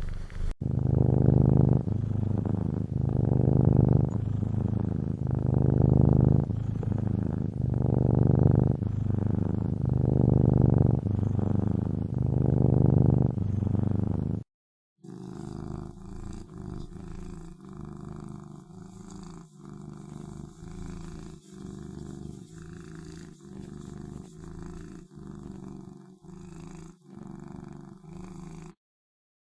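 Domestic cat purring close to the microphone, swelling and fading with each breath. About halfway through it cuts to another, quieter cat purring in the same rhythm.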